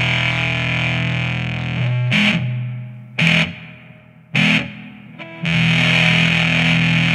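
Electric guitar through a Fender Mustang GT-40 modeling amp with the Big Fuzz pedal effect placed before the amp model, playing heavily fuzz-distorted chords. A held chord fades about two seconds in, three short stabbed chords follow, and a chord struck about five and a half seconds in is held with long sustain.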